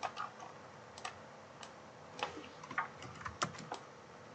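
Scattered clicks of a computer mouse and keyboard, a dozen or so at uneven spacing, most of them bunched in the second half.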